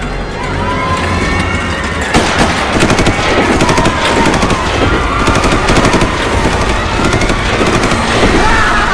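Rapid machine-gun fire from an arcade light-gun shooting game, dense strings of shots starting about two seconds in.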